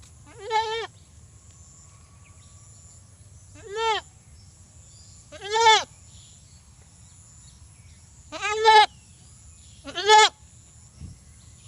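Desi goat bleating five times, each call short and quavering.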